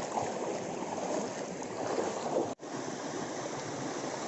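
Steady rush of a rocky hill river's water flowing around the wader, cutting out for an instant about two and a half seconds in.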